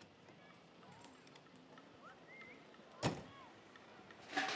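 The door of a small microcar shutting with one sharp clunk about three seconds in, against faint chirps. A louder rustling noise starts near the end.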